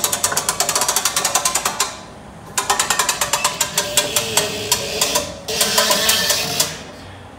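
Hitch-mounted SpitzLift crane's winch running in three spurts, a rapid mechanical clatter of about ten clicks a second, drawing up the lifting strap on a generator.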